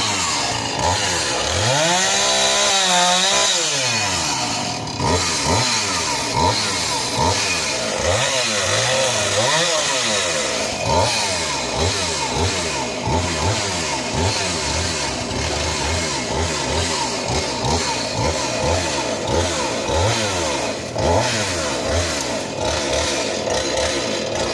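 Husqvarna 450e 50.2 cc two-stroke chainsaw cutting through a tree, its engine pitch rising and falling many times as the throttle is worked and the chain bites into the wood, held at high revs for a while about two seconds in.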